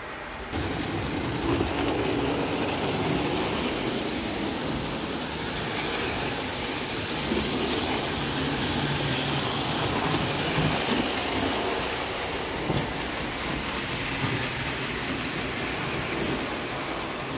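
Freshly overhauled Bing 0 gauge live steam locomotive running with its coaches on tinplate track: a steady rattling rumble of wheels on the rails that starts about half a second in, with a few sharper clicks over rail joints or points.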